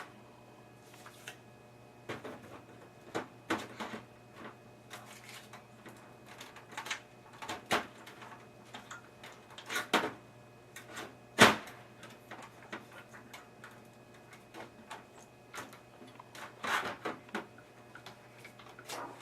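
Irregular clicks, knocks and scrapes of a hard drive being slid into its bay in a desktop computer case and clipped in place, with one sharper knock about eleven seconds in.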